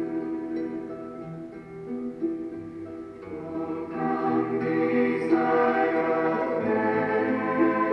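Sacred music with choir voices over sustained instrumental chords, swelling louder and fuller about four seconds in.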